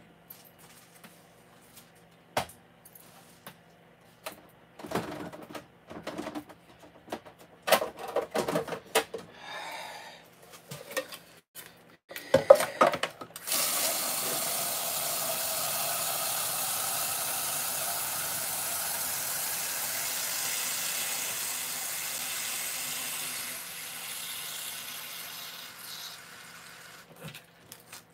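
Things are handled and set down on a kitchen counter, with clicks, clatter and a sharp knock. Then a kitchen tap runs water steadily for about ten seconds before tailing off.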